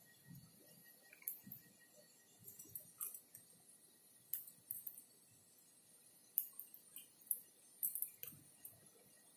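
Cats crunching dry food: irregular crisp crunches and clicks with quiet gaps between them.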